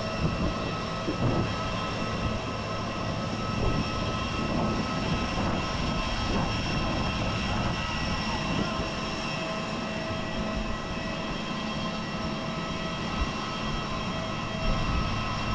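Steady low rumble with several constant high whining tones from a parked jet airliner's running machinery, with a few light knocks.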